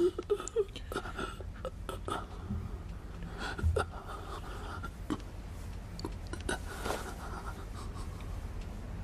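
A wounded man's strained panting and gasps while a bullet is treated, with scattered small clicks and scratches, over a low steady hum.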